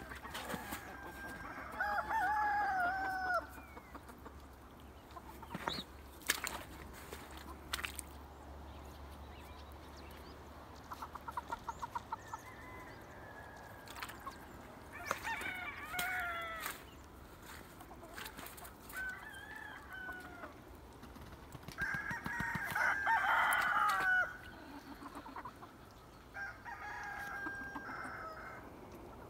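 Asil Hamlin gamecocks crowing: about five separate crows, some near and some farther off, the loudest in the last third. A few sharp clicks come between the crows.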